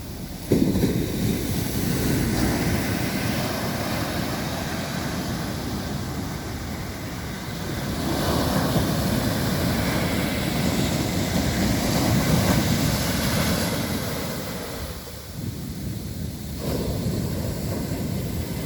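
Sea waves breaking and washing on a beach in a steady surf hiss that swells and falls back as the waves come in, with wind buffeting the microphone.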